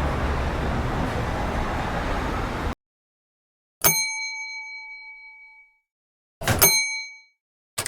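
Stock sound effects played one after another: a steady noisy rush that cuts off suddenly, then a single bell ding that rings out for about two seconds, then a second, shorter metallic ding.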